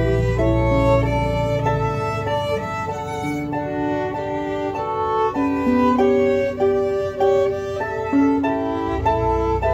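Two violins and a harp playing a fiddle tune together as a trio, the bowed violin melody moving through quick, changing notes over the harp.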